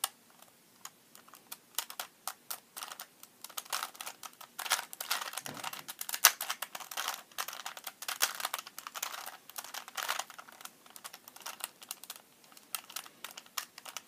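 A 3x3 Rubik's Cube being turned by hand: quick plastic clicks and clatter as its layers snap round, coming thickest in the middle few seconds.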